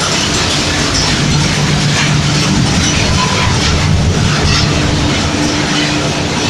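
Lintec CSD 3000 asphalt mixing plant running in production: a loud, steady machinery drone with a low hum and continuous rattling.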